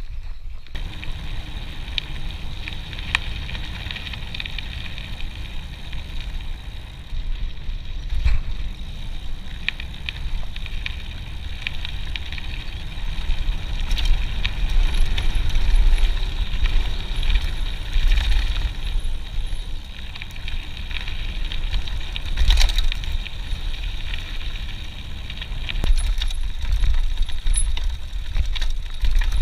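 Mountain bike ridden over a dirt and gravel forest trail, heard from a chest-mounted camera: a steady low rumble of tyres and air with frequent rattles and knocks from the bike over bumps. It grows louder about halfway through.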